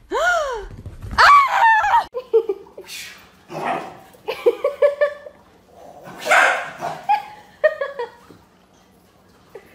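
Dog vocalising: in the first two seconds a French bulldog gives a short falling howl and then a longer wavering whine; after that a small dog yips and barks excitedly in quick runs of short sharp yips.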